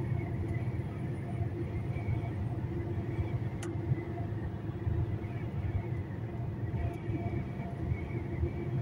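Heavy truck under way: steady engine and road rumble with a few constant tones over it.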